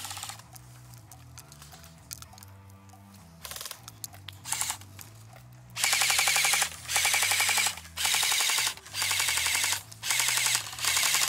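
Airsoft rifles firing: two short bursts, then from about halfway in, about six full-auto bursts of very rapid cracking shots, each burst under a second long.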